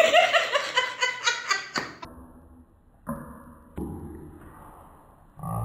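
A woman laughing in a quick high-pitched run, then, after a short pause, two sudden sounds that each ring and fade.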